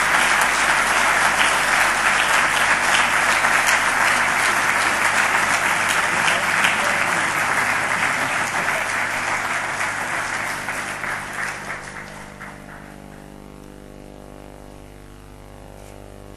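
Audience applauding, dying away about twelve seconds in.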